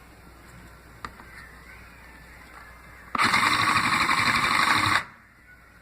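Sew Cool toy sewing machine running in one short burst of stitching through fabric, a fast mechanical chatter lasting about two seconds. It starts about three seconds in and stops abruptly.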